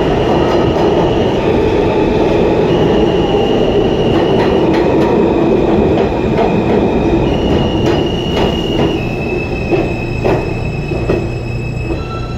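Inside a moving R160A New York subway car: a heavy running rumble, with high steady squealing tones that step between pitches. From about four seconds in come repeated sharp clicks over the track, and the sound gets a little quieter in the second half.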